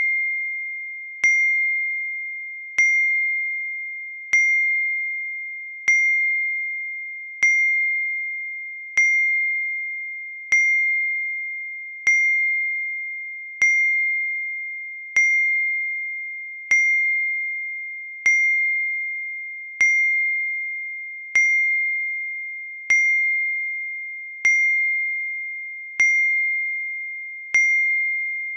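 iPhone message notification tone: a single bell-like ding that starts sharply and fades, repeated over and over about every one and a half seconds.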